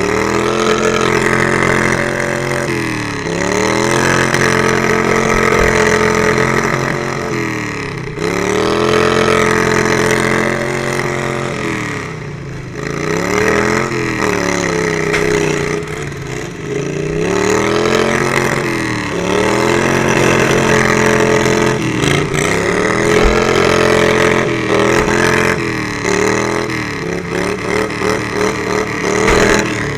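Racing lawn mower engine under throttle, its pitch repeatedly climbing and then dropping every few seconds as it revs up and eases off.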